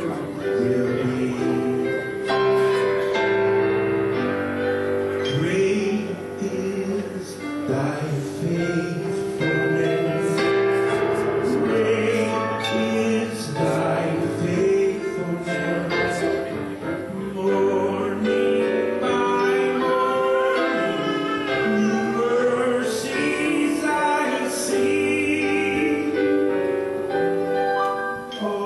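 Worship music: singing over sustained instrumental accompaniment.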